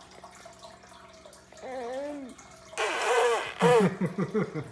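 A baby blowing raspberries with her lips: a short voiced coo about two seconds in, then a loud, wet, spluttering lip buzz with her voice sliding through it, and a brief harsh spray of breath in the middle.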